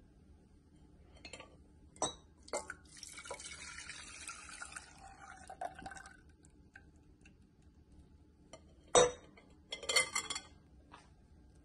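Whisked custard mixture poured from a glass bowl into a stainless steel saucepan: a few clinks, then liquid pouring and splashing into the pot for about three seconds. Near the end, a loud knock and then a quick rattle of clinks from kitchenware.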